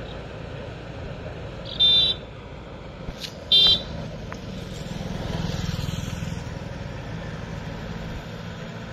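Kubota MU5502 tractor's diesel engine running steadily at a distance as its rotavator churns a flooded paddy, swelling a little about five seconds in. Two short, loud, high-pitched beeps cut in, about two and three and a half seconds in.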